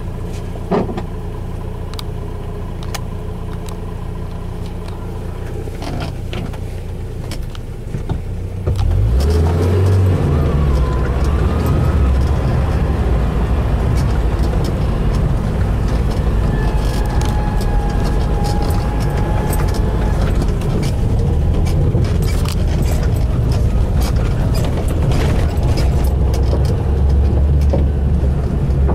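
Motor vehicle driving over a rough, rail-laid dirt track: a steady low engine and road rumble with scattered knocks and rattles, which becomes much louder about nine seconds in and stays loud.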